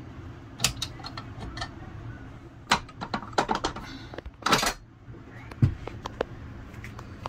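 Stainless steel mixing bowl being unclipped and lifted off a bowl-lift stand mixer: a string of sharp metal clicks and knocks, a short scraping rasp about four and a half seconds in, and a dull thump soon after.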